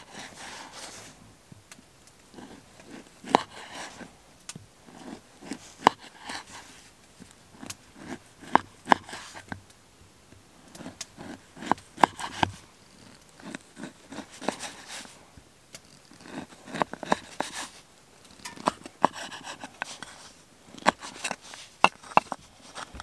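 Knife cutting a chorizo sausage on a wooden chopping board: irregular sharp taps of the blade striking the board, some in quick runs as the slices are diced, with soft cutting sounds between.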